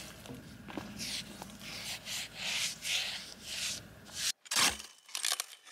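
Paintbrush stroking clear wood oil onto a timber post: a run of dry, swishing brush strokes, about two a second.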